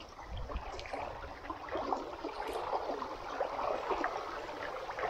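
Water trickling and splashing lightly around a kayak, many small drips and ripples with no single loud event.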